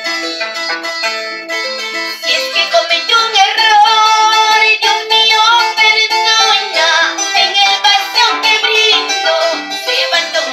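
Large wooden harp being plucked, playing a melody over repeating bass notes, with a woman singing along that comes in about two seconds in.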